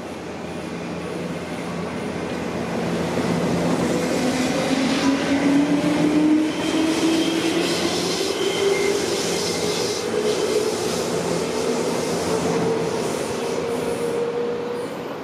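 A six-car JR West 201 series electric train passing close by, with wheels rumbling on the rails and a motor whine that rises steadily in pitch as it speeds up. It is loudest about five to six seconds in and stays loud as it runs beneath.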